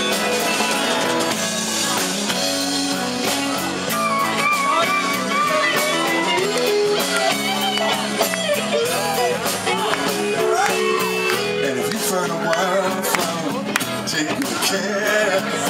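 Live rock band playing an instrumental break: lead guitar with bent, wavering notes over drums, bass and strummed guitar.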